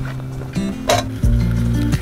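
Background music with held bass notes and chords, and one short sharp click about a second in.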